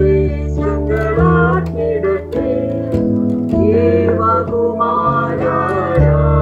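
A man and a woman singing a song together over an instrumental backing of sustained chords that change every second or so.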